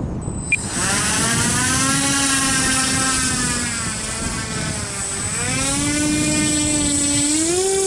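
Electric motor and propeller of a battery-powered radio-controlled Quicksilver ultralight model running at power: a steady propeller hum with a thin high whine. The pitch dips about halfway through, then climbs again near the end.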